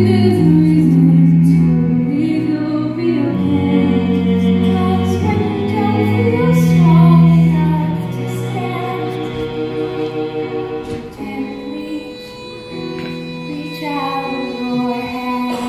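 Musical-theatre ballad through stage speakers: a held, swelling accompaniment with female voices singing.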